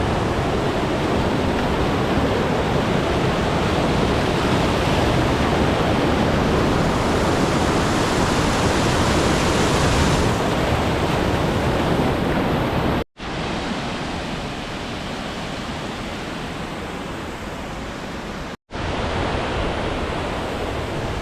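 Waterfalls on a fast mountain beck swollen by heavy rain: a loud, steady rush of falling water. The sound drops out abruptly twice, about 13 and 18.5 seconds in, and is slightly quieter after the first break.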